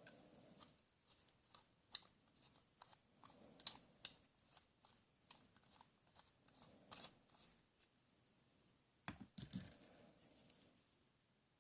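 Near silence with faint scattered clicks and taps, and a couple of soft knocks about nine seconds in.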